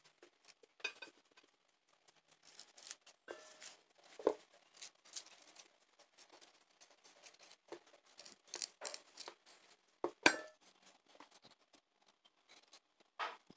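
Kitchen knife peeling and cutting a chayote squash by hand, with irregular scraping and crisp cutting clicks. Now and then a knock or clink against a steel bowl, sharpest about four and ten seconds in.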